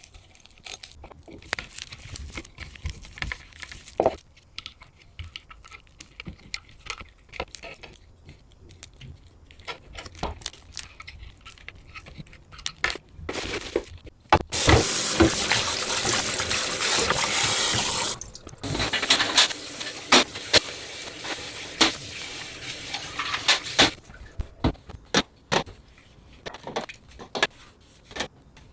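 Small clicks and knocks of objects being handled, then a water tap running for a few seconds about halfway through, followed by a weaker run of water with knocks among it.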